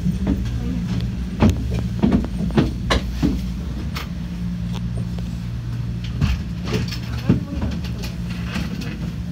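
Ropeway gondola moving slowly through its station: a steady low machine hum with irregular clacks and knocks as the cabin runs over the station's wheels and rails.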